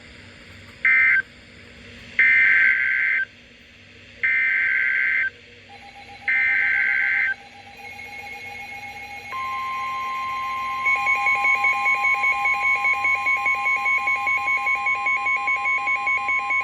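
Emergency Alert System data tones: a short end-of-message burst of warbling digital tones, then the next alert's header burst sent three times about two seconds apart. After that comes the steady NOAA Weather Radio warning alarm tone, and a fast pulsing beep alarm joins it partway through.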